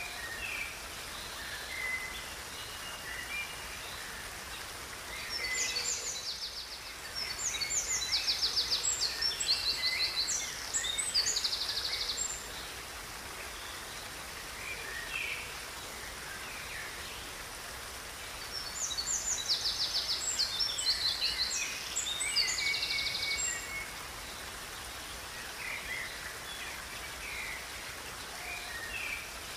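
Songbirds singing over the steady rush of a river. Scattered short chirps run throughout, and a bird sings two long bouts of fast trills, one starting about five seconds in and the other about eighteen seconds in.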